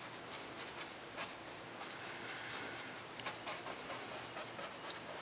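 Round paintbrush stippling wet paint onto a fascia board with short punching strokes: faint, irregular dabs and rubs of the bristles on the board.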